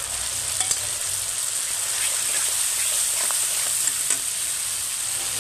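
Chopped onions and a red sauce sizzling in hot oil in a pan, with a steady hiss. A spatula stirs through them, making a few sharp clicks.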